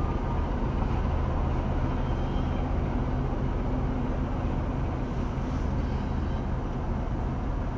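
Freight train of tank cars rolling through a level crossing: a steady low rumble and rattle of wheels on rail, heard from inside a stopped car.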